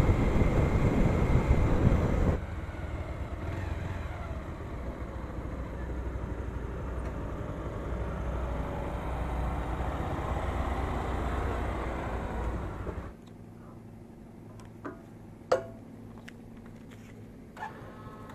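Bajaj Pulsar single-cylinder motorcycle riding with wind rushing over the helmet microphone for about two seconds, then the engine idling steadily at low level until it is switched off about thirteen seconds in. A few sharp clicks follow.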